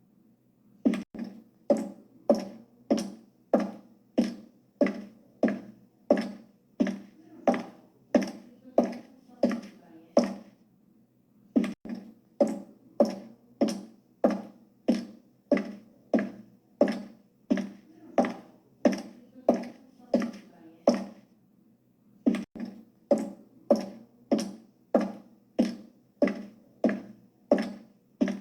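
High-heeled shoes walking, heel strikes clicking at an even pace of about two steps a second. The steps stop briefly twice, about a third and about two thirds of the way through.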